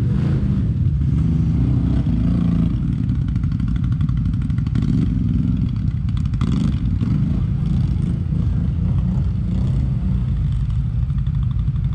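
ATV engine running at close range, its pitch holding fairly steady, with some clatter.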